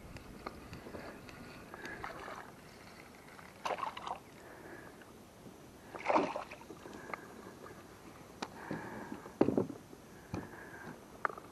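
A hooked crappie reeled in on a spinning reel beside an inflatable kayak: the reel cranking, then the fish splashing at the surface about six seconds in. A few more sharp splashes and knocks follow as the fish is brought to the boat.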